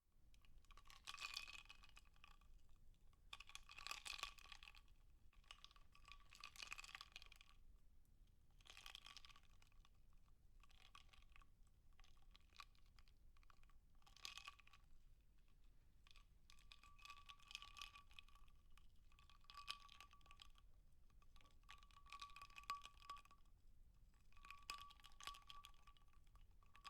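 Ice in a glass of water: faint, repeated bursts of crackling and clinking, each lasting a second or two and coming every few seconds.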